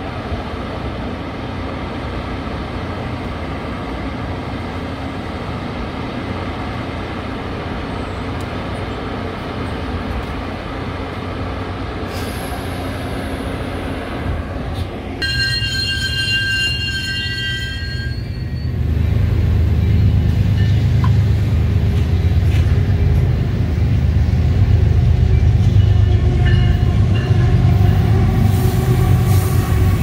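Metra bilevel commuter train at a station platform: a steady low running hum, then a few seconds of high-pitched wheel squeal about halfway through as a train moves along the platform, followed by a louder low rumble of the train.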